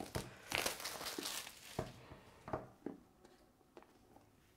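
Thin plastic shrink wrap crinkling as it is pulled off a smartphone's cardboard box over the first couple of seconds, then a few soft taps as the box is handled.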